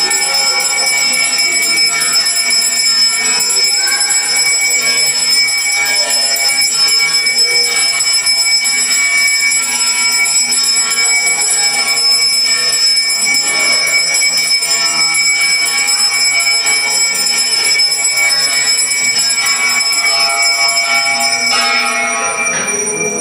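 Brass hand bell (puja ghanta) rung steadily and continuously during arati, a sustained ringing with many high overtones; it stops near the end.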